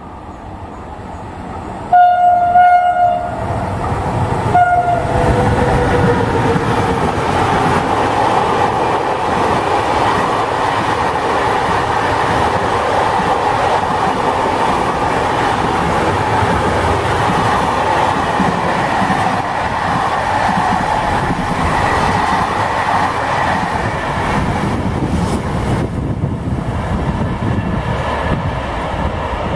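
Container freight train approaching and passing at speed. Its horn sounds two blasts, a longer one about two seconds in and a short one a couple of seconds later. A long run of container wagons follows, wheels running loudly over the rails, easing off near the end as the train clears.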